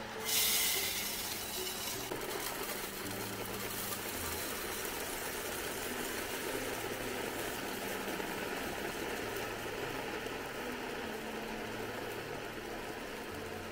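Dry white rice poured from a 5 kg plastic bag into a glass storage jar: a steady hissing rush of grains pouring onto glass and onto rice, loudest in the first second and tapering off near the end.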